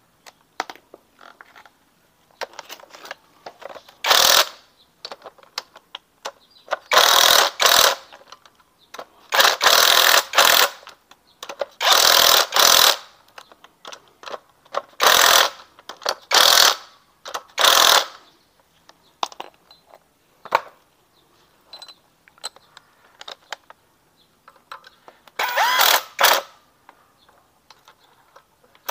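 Cordless drill driving bolts on a motorcycle engine in short bursts of a second or less, about nine runs, most in the first half and one more near the end, with small metal clicks of tools and parts between.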